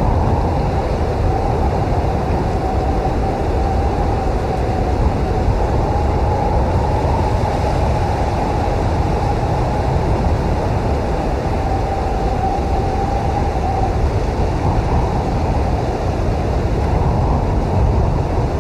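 Blizzard wind blowing hard and steadily, a deep rumble with a thin whistling howl over it that fades out about three-quarters of the way through.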